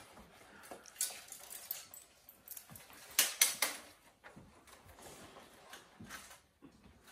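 Steel plates of an armour gauntlet clinking and rattling as it is worked onto a hand and its leather strap fastened, with a few sharp metal clinks, the loudest pair about three seconds in.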